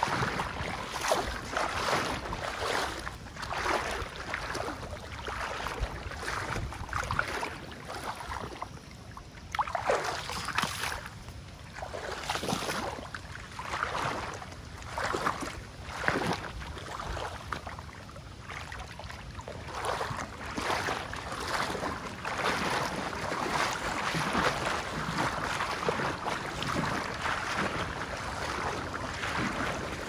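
River water running and splashing: a continuous hiss that swells and dips unevenly, with many brief surges.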